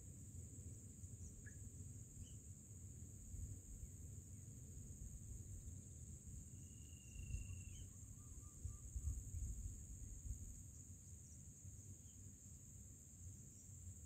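Faint outdoor ambience: a steady high insect drone over a low rumble. Near the middle comes a single short, thin bird whistle, with a few tiny chirps scattered around it.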